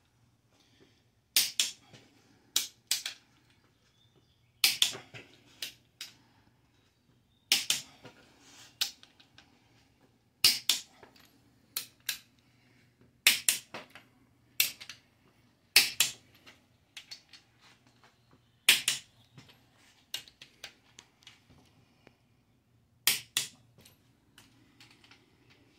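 Click-type torque wrench clicking on the cylinder head bolts of a Ford 352 FE V8, one sharp click every second or two as each bolt is checked on a final verification pass. Each click means that bolt has reached its set torque.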